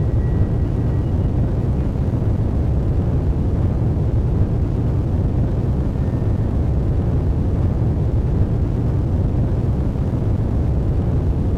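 Steady, deep rumbling drone with no beat or distinct tones, holding an even level throughout.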